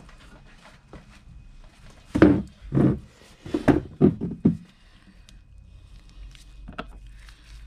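About five knocks in quick succession over two seconds, then a single sharper click near the end, while a seized, saltwater-corroded fishing reel is being dismantled.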